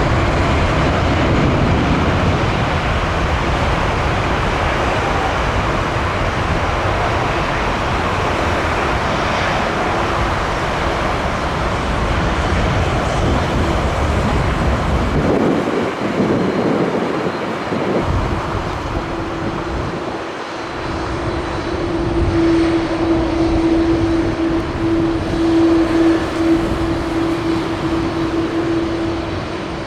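Jet airliner engines running in a steady roar as a large passenger jet passes close by. About two-thirds of the way in, a steady engine tone rises out of the roar and holds.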